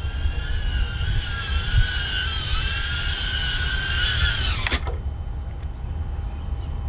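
Brushless motors and propellers of a small ducted whoop quadcopter whining as it flies in close to land, the pitch wavering with the throttle. About two-thirds of the way in the whine cuts off suddenly as the motors are disarmed, followed by a brief click.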